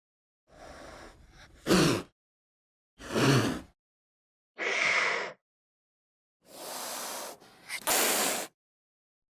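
Short dinosaur vocal sound effects for a small tyrannosaur, played one after another with silence between them. There are about six: breathy snorts and hisses, and brief calls that drop in pitch. The loudest is a harsh burst near the end.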